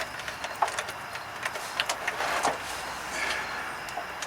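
Scattered metal clicks and knocks, with a short rattling scrape about two seconds in, as a jack carrying a truck's hydraulic pump is moved back a little into position.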